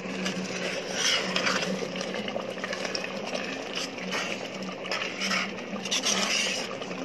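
A ladle stirring simmering prawn curry in a metal pot, with uneven bursts of scraping and sloshing over a steady low hum.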